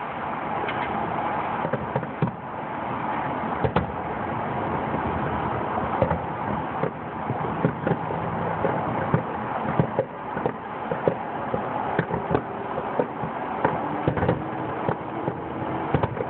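Aerial fireworks display: short bangs and pops at irregular intervals, coming more often in the second half, over steady background noise.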